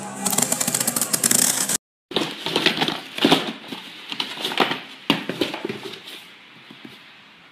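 Cardboard box being handled and opened by hand: a quick run of crackling clicks, a brief break about two seconds in, then irregular knocks, scrapes and rustles of the box and its flaps that die away near the end.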